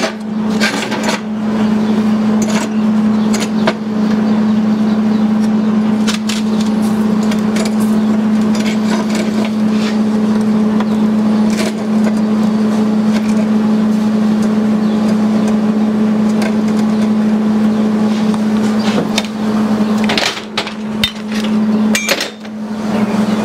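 A steady low machine hum, with clinks and knocks of steel pieces and tools being handled on a steel welding table.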